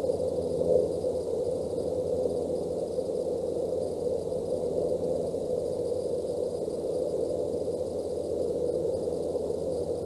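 Steady static-like hiss and low rumble from the osprey nest camera's live microphone, with no distinct bird calls or other events.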